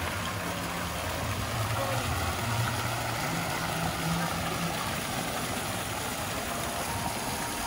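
Water from a statue fountain splashing steadily into its basin, with faint voices of passers-by. A low steady hum sits underneath and fades out a little past halfway.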